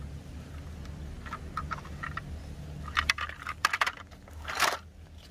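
Small plastic and die-cast toy vehicles clicking and clattering together in a plastic basket as a toy school bus is put in among them, a cluster of sharp clicks about three seconds in, followed by a brief rustling noise.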